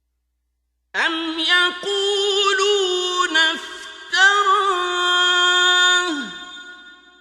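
Solo male voice reciting the Quran in the melodic, drawn-out mujawwad style. After a second of silence he sings two long, ornamented phrases on a high held note; the second ends with a falling glide and fades away.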